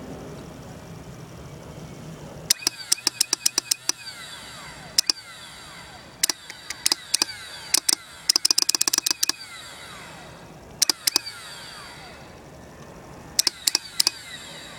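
Sharp clicking in bursts from a Kawasaki ZX-9R motorcycle that will not start. The clicks come in quick runs of a few to about a dozen, the densest run about eight seconds in, with pauses of a second or more between runs.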